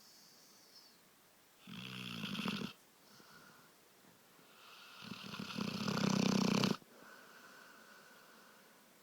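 Snoring: a snore about two seconds in, lasting about a second, then a longer, louder one that builds from about five seconds in and stops abruptly near seven seconds, with soft breaths in between.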